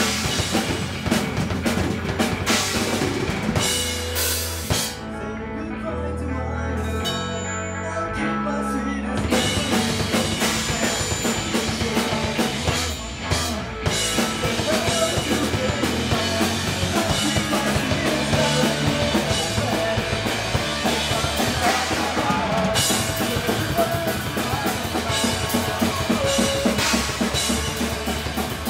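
A rock band plays live on electric guitar, bass guitar and drum kit. About five seconds in, the drums drop out for roughly four seconds, leaving a run of low guitar and bass notes. Then the full band comes crashing back in with steady drumming.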